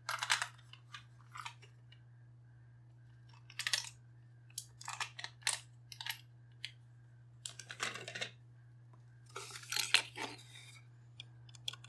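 Scattered clicks, scrapes and light rattles of small screws being undone and the plastic housing of a cheap mechanical kitchen timer being handled, in irregular clusters, over a steady low hum.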